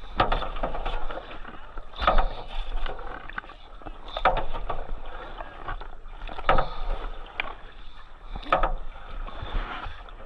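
A paddle dipping and pulling through river water in steady strokes, a splashy swish about every two seconds, five times.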